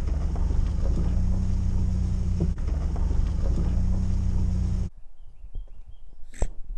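Vehicle driving on a dirt forest road, heard from inside the cabin: steady engine and tyre rumble that cuts off abruptly about five seconds in. What follows is quiet outdoor ambience with faint chirps and one sharp snap near the end.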